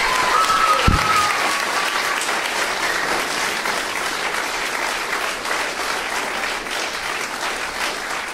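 Audience applauding after the song ends, slowly fading, with a brief pitched cheer near the start and a low thump about a second in.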